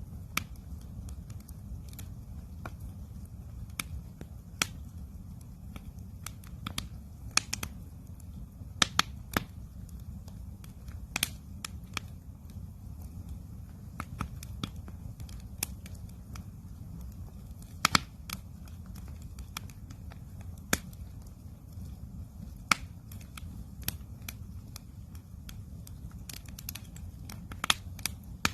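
Campfire crackling, with irregular sharp pops and snaps of wood, several of them louder, over a steady low rumble.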